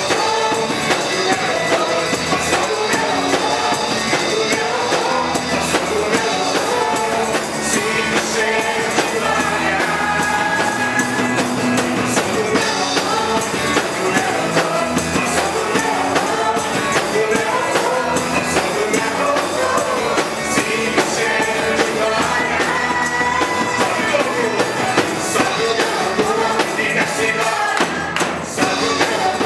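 Christian worship song (louvor) with singing over a band with drums and tambourine, playing steadily.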